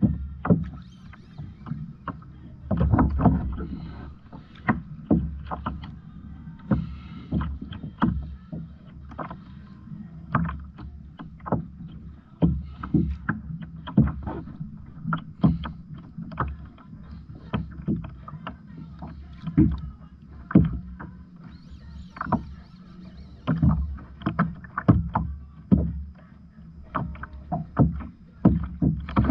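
Water slapping and knocking against a fishing kayak's hull: irregular thumps and splashes about once a second over a steady low rumble.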